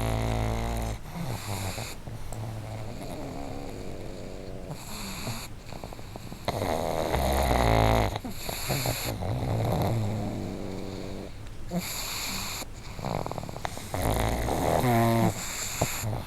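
Sleeping pugs snoring loudly, rasping and rattling snores that swell and fade every few seconds. The strongest snores come about half a second in, around seven seconds in and around fourteen seconds in.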